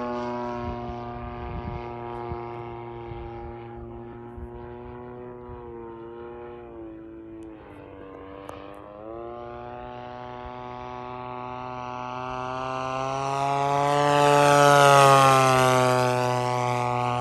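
DLE 55 single-cylinder two-stroke gas engine of a large-scale radio-controlled A6M Zero in flight. The engine note dips in pitch around the middle, then grows louder to a close pass about 15 seconds in, its pitch falling as the plane goes by.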